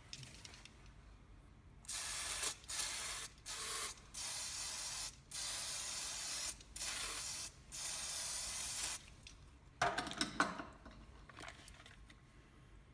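Aerosol can of Paslode degreaser hissing in about seven sprays with short breaks, flushing carbon and burnt oil out of a gas fencing stapler's combustion cylinder. A few sharp clicks and knocks of handling follow near the end.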